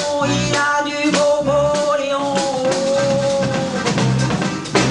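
Live French chanson accompaniment of accordion, drum kit and percussion playing between the sung lines. A long held note sounds from about a second and a half in, low bass notes pulse under it, and a sharp drum hit comes near the end.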